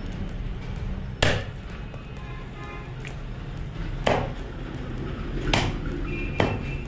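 Large knife chopping rohu fish pieces on a wooden chopping block: four sharp chops, about a second in, then near four, five and a half, and six and a half seconds in.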